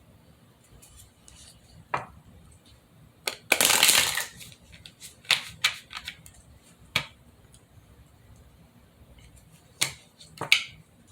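Tarot cards being handled and shuffled: a short shuffle about three and a half seconds in, and scattered sharp snaps and taps of cards between stretches of quiet.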